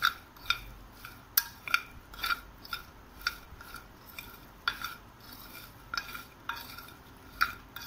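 A spoon clinking repeatedly against a bowl as cut lemons are stirred and coated with salt, sugar and turmeric for pickle. About a dozen irregular clinks, each with a short ring.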